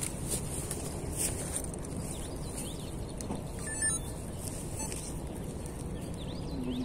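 Small birds chirping in short high calls over a steady low background hum of open-air noise, with one brief sharper chirp about four seconds in.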